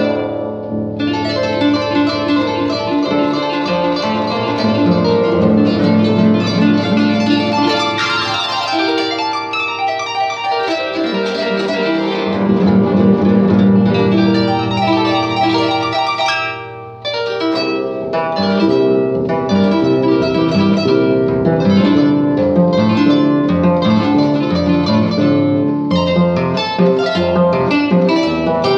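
Paraguayan polka played on a plucked-string instrument, most like a Paraguayan harp: fast runs of plucked notes over a bass line, with a brief break about two-thirds of the way through.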